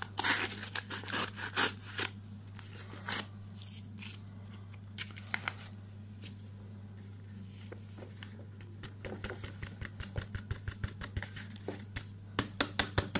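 Whipped-cream powder sachet crinkling and rustling in the hand as it is opened and emptied into a glass bowl: a cluster of crackles at the start, a quieter stretch, then a faster run of crackles in the last few seconds as the powder is shaken out. A steady low hum runs underneath.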